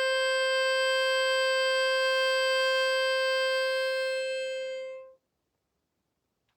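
One steady held note on a musical instrument, staying on a single pitch with a rich set of overtones, then fading and stopping about five seconds in.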